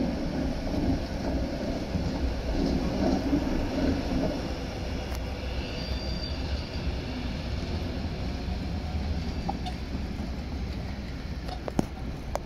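Two-car Tatra T3 tram set running over street track, the wheels rumbling on the rails. It is loudest over the first few seconds and fades as the tram moves off round the curve.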